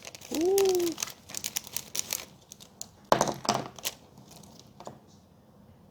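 Crinkly plastic packaging on a set of brush pens being handled and opened, in bursts of rapid crackling about a second in and again around three seconds in.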